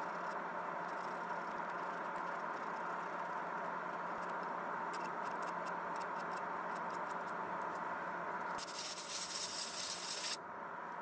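Wood lathe spinning a turned wooden piece with sandpaper held against it: a steady sanding hiss over the lathe motor's low hum. A run of light ticks comes in the middle, and the hiss grows louder and harsher for a couple of seconds near the end before easing off.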